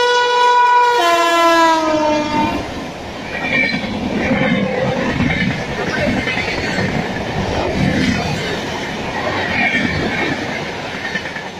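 WAP7 electric locomotive's horn sounding one long blast that steps down in pitch about a second in. After that, a passenger train's coaches run past at speed, with a steady rumble and wheel clatter over the rail joints.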